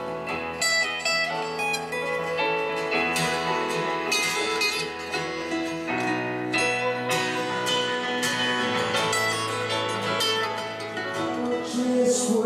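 Acoustic guitars playing live, an instrumental passage of quick plucked notes.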